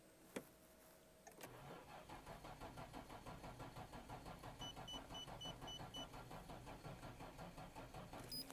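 Nissan Skyline GT-R's RB26 straight-six being cranked on a flat battery: the starter motor labours, turning the engine over in a weak, steady rhythm of about four beats a second, without it catching. A row of six short electronic beeps sounds about midway through.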